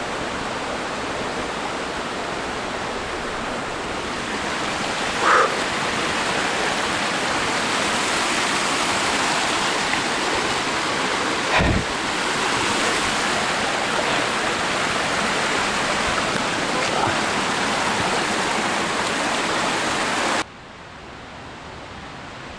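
Fast burn rushing and tumbling over rocks, a steady loud rush of water. A brief sharp sound cuts in about five seconds in, and a dull knock comes just before halfway. Near the end it cuts off suddenly to a much quieter hiss.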